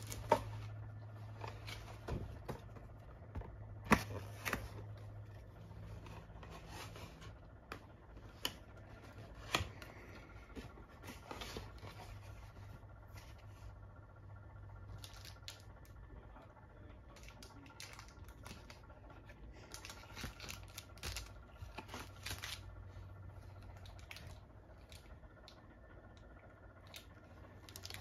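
Small cardboard box and crinkly snack wrappers handled by a toddler: scattered taps, knocks and rustling, with a few sharper knocks in the first ten seconds, over a faint steady low hum.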